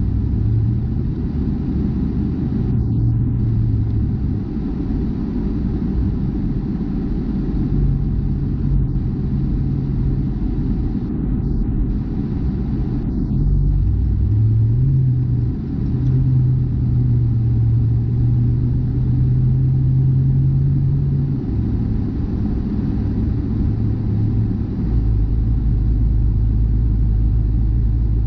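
A car's engine and road noise while driving on a highway: a steady low rumble with a humming engine tone that rises and falls in pitch. The deepest rumble grows heavier near the end.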